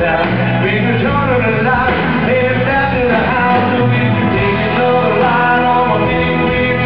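Live country rock band playing: electric guitars with a man singing lead into a microphone.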